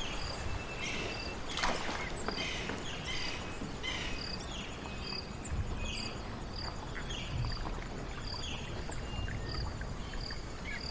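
Tropical riverside ambience: a steady high-pitched insect whine, a short insect chirp repeating evenly a little under twice a second, and scattered bird calls over a low, even rumble. There is one sharp click about two seconds in.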